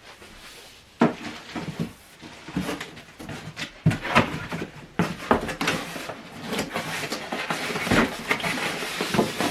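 Unboxing noises as the packaging around a subwoofer is handled: a sharp knock about a second in, then irregular clicks, knocks and rustling that grow busier in the second half.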